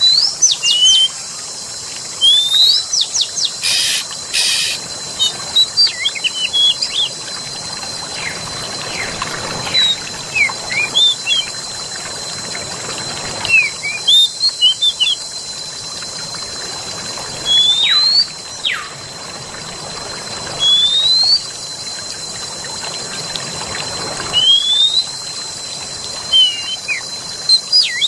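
Wild birds singing in clusters of short rising whistles and chirps every few seconds. Under them runs a steady rush of flowing water and a constant high-pitched tone.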